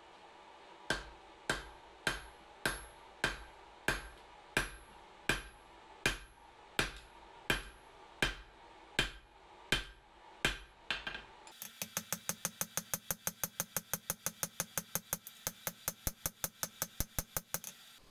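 Hand hammer striking leaf spring steel on an anvil, drawing out a tang: sharp, ringing blows about one and a half a second. About eleven seconds in, the blows change to a quicker even run of about five a second.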